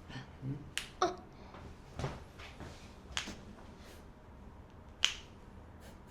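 Joints cracking under a chiropractic adjustment: about five sharp pops, the loudest about a second in and again near five seconds.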